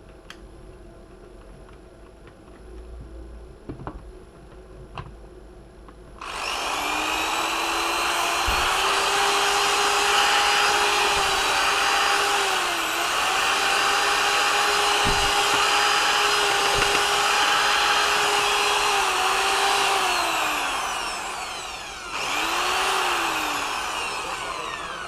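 Bosch corded drill's brushed motor, freshly fitted with new brushes, starts about six seconds in after a few light clicks and runs steadily at speed, described as running fine. It winds down, starts again briefly and spins down near the end; the owner says it sometimes stops depending on the position of the power cord.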